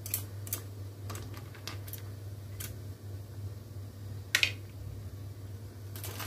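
Clam shells clicking and knocking against each other and the pan as chopsticks stir them in boiling water, in scattered irregular clicks, one louder knock about four seconds in, over a steady low hum.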